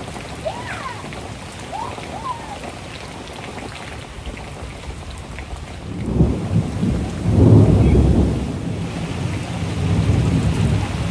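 Rain falling steadily, with a long low rumble of thunder that builds about six seconds in and is loudest a couple of seconds later before easing off.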